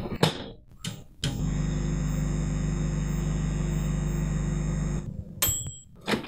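Microwave oven running with a steady hum for about four seconds, then stopping abruptly, with clicks before it and a short high beep after it stops.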